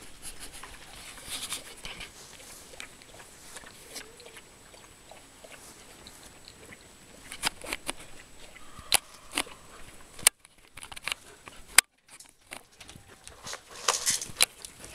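Alaskan malamute puppies scuffling at play, with scattered sharp clicks. The sound cuts out for about a second and a half a little past the middle, starting and ending with a sharp click.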